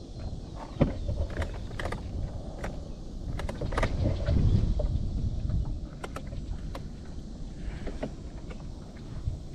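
Scattered sharp clicks and light knocks of hands working at the boat motor's battery connections, which are giving no power because the positive lead has come loose. Under them runs a low rumble that swells about four seconds in.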